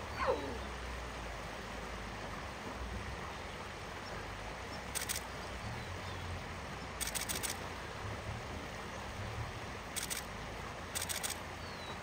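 Steady rush of a swollen river running fast over rocks. A short falling animal call sounds right at the start, and from about five seconds in a camera shutter fires several times, some in quick bursts.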